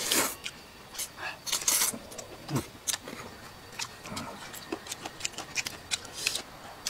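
Close-up eating sounds: wet chewing and lip-smacking on chicken feet, with many irregular short clicks and a few louder smacks near the start and a little under two seconds in.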